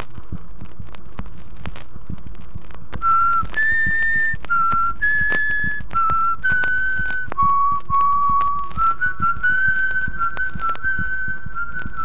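Surface hiss and frequent crackling clicks of a flexi disc record playing; about three seconds in, a person whistles a slow melody note by note over the noise, ending on a lower held note.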